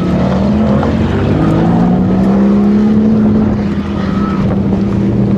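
Chevrolet Camaro SS V8 held at high, fairly steady revs while the rear tyres spin in a smoking donut, with the engine note dipping briefly near the end.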